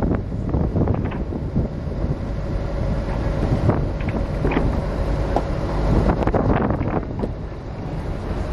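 Wind buffeting the microphone on a moving boat, over the rush of water along the hull, with a few short splashes and a faint steady hum underneath.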